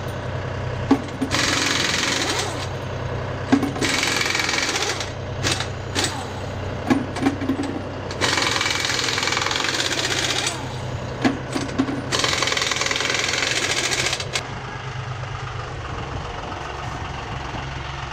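Air impact wrench hammering lug nuts off a sprayer wheel in four bursts of one to two seconds each, with short clicks between bursts. A steady low hum runs underneath.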